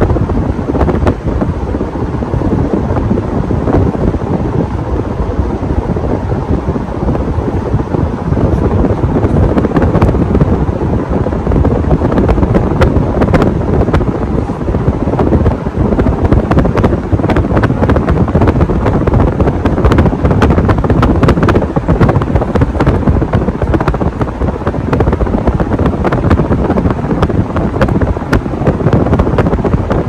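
A 52-inch Casablanca California Zephyr ceiling fan running with four blades, its moving air blowing across the microphone as a loud, steady wind noise.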